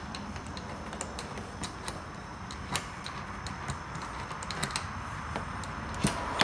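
Scattered light clicks and taps at an uneven pace, with a couple of sharper knocks about a third of the way in and near the end.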